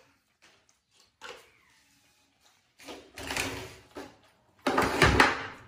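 Short rustling and handling noises, the loudest a brief burst about five seconds in.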